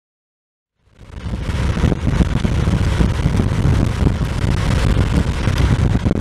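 Loud, gusty wind rumbling and buffeting on the microphone, starting suddenly about a second in.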